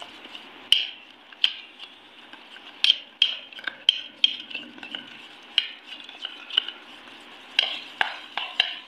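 Steel spoon stirring a thick gram-flour and semolina batter in a stainless steel bowl, with a soft scraping and sharp clinks of spoon on bowl at irregular intervals. The batter is still too thick at this point.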